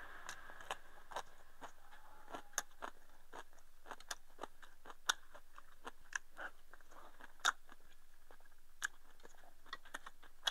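A man chewing rice close to a clip-on microphone: irregular small clicks and crunches, about two or three a second, with chopsticks tapping against a porcelain rice bowl.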